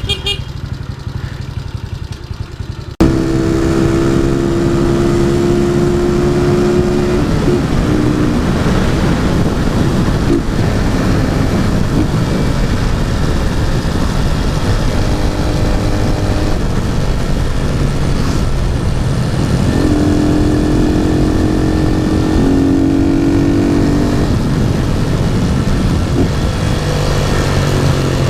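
Honda Titan 150's single-cylinder four-stroke engine running through an aftermarket GeMoto exhaust while riding, its pitch rising and falling with the throttle, under heavy wind noise on the helmet microphone. The sound jumps suddenly louder about three seconds in.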